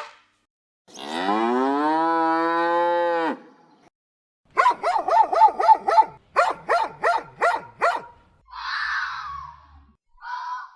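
A cow mooing: one long call that rises in pitch and then holds for about two and a half seconds. It is followed by a quick, pulsing series of higher calls and then a few short, rough calls from other animals.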